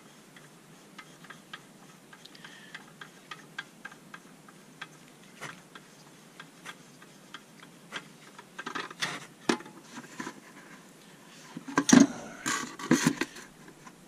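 Light clicks and knocks of the water supply line's coupling nut being unscrewed by hand from the fill valve shank under a toilet tank. They become denser and louder in the second half, loudest about two seconds before the end.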